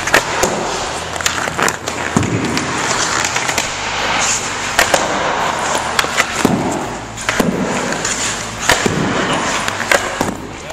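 Ice hockey pucks cracking off a stick blade and smacking into a goalie's pads, with skate blades scraping across the ice as the goalie pushes to the post. Sharp cracks every second or so over a steady scraping hiss.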